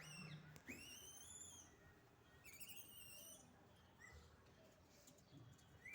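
Faint, high-pitched animal calls: three short whistled cries, each rising then falling in pitch, spaced a second or two apart.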